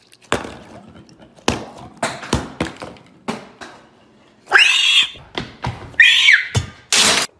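Small plastic energy-shot bottles knocked over one after another, clattering onto a countertop in about six sharp knocks. Then come two high-pitched shrieks and a short burst of noise near the end.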